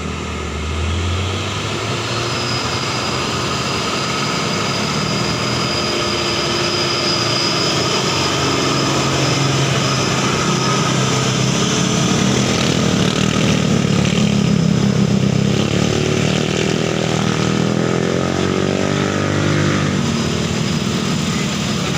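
Diesel engine of a concrete mixer truck working up a hill as it passes. Its note wavers in pitch over the middle of the passage and it is loudest about 15 seconds in.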